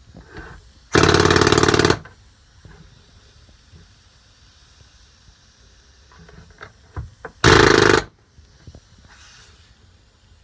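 Snap-on PH3050BG pneumatic air hammer firing in two short bursts of rapid blows, one about a second long near the start and a shorter one of about half a second near the end, with small clicks of handling between.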